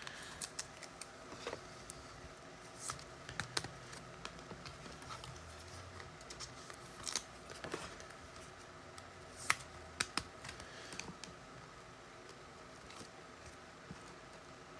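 Trading cards and packs being handled: faint, scattered clicks and taps, a few sharper ones about a third and two-thirds of the way through.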